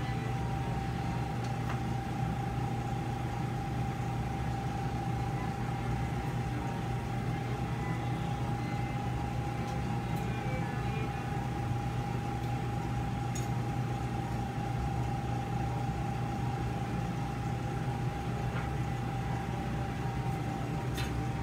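Steady hum of operating-room equipment: a constant low drone with one unwavering high-pitched tone over it. There are a few faint clicks.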